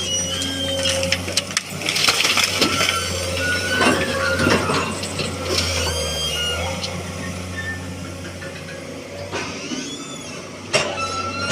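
Excavator's diesel engine running steadily under load while wooden pallets knock and clatter as they are grabbed and loaded, with a burst of sharp cracking knocks about two to five seconds in and another near the end.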